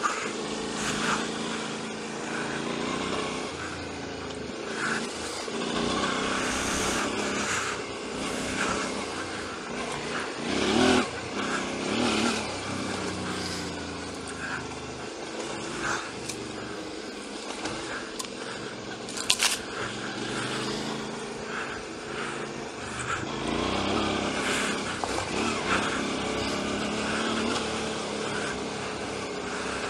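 Motorcycle engine running at low speed on a rough dirt trail, its pitch rising and falling with the throttle. Irregular knocks and rattles from the bike run through it, with one sharp knock about 19 seconds in.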